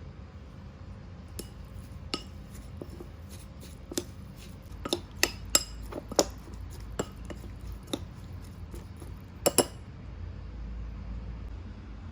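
Utensils clinking against dishes: a series of sharp, irregular clinks with short ringing, the loudest in the middle and a quick double clink near the end.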